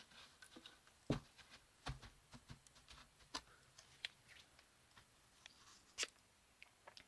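Faint, scattered rustling of aspen wood-shaving bedding being spread and smoothed by hand, with a few sharp knocks and taps against the enclosure.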